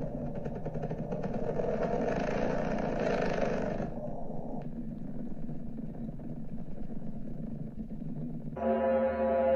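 Eerie, rough, rumbling drone of a 'planet sound from space' recording, with a crackling hiss on top that drops away about four seconds in. Near the end it switches to a steady ringing tone with many overtones, like a scary bell.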